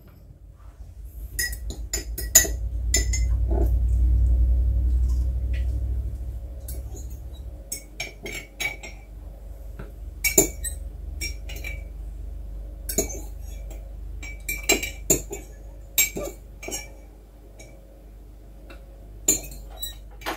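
Kitchen clatter of dishes, cutlery and glass: a string of short clinks and knocks as plates, a knife and a glass jar are handled on the counter. A low rumble swells and fades over the first several seconds.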